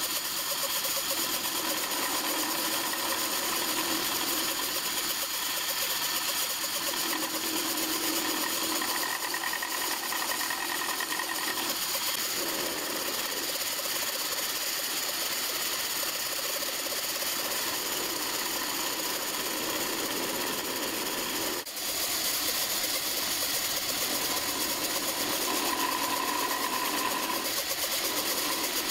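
Milling machine running with a small end mill cutting a step into a metal quadrant arm: a steady machining noise, broken briefly about two-thirds of the way through.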